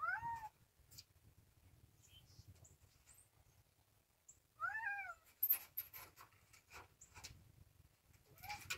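Domestic cat meowing twice, about four and a half seconds apart, each a short call that rises and then falls in pitch, with a fainter third meow near the end. A few sharp clicks follow the second meow.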